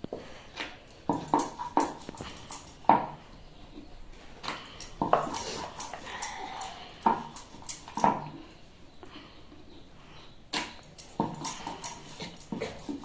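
A dog's short whimpers and yips, repeated irregularly, with light clicks of a steel tumbler and knife on a wooden board.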